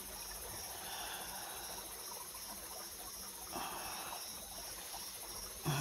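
Night insects, crickets, chirping steadily in an even high-pitched pulse, with two brief soft noises in the foreground, the second a little past halfway.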